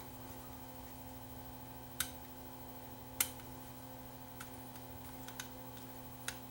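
A few sharp, short metallic clicks from a small screwdriver working a screw into the arm-lift mechanism of a Technics SL1400MK2 turntable, two louder ones about two and three seconds in and fainter ones after, over a steady low hum.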